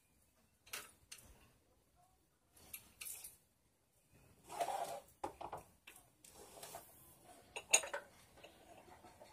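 Small hard objects clinking and clattering as they are handled, moved and set down on a desk, in irregular bursts with the sharpest clack near the end.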